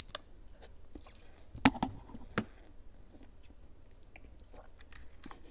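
Fruit jelly sticks being handled and squished close to the microphone: scattered soft clicks and wet squishes, with two louder ones about one and a half to two and a half seconds in.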